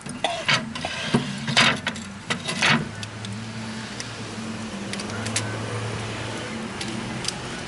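Low, steady engine-like hum, with several sharp knocks and clatters in the first three seconds.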